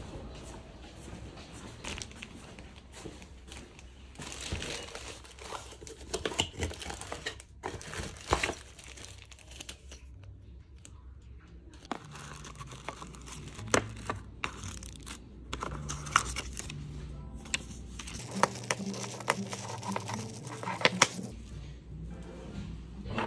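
Packaging being handled: a small cardboard box opened and its plastic wrapping crinkled and torn off, with scattered clicks and rustles and a longer burst of crinkling near the end as the parts of a metal desk clamp are unpacked.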